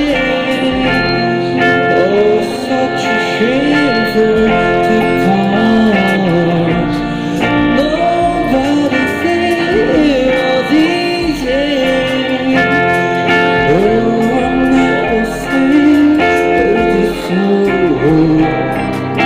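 A male street busker singing into a microphone and playing an electric guitar through a small Cube amplifier, a slow song with the voice over the guitar.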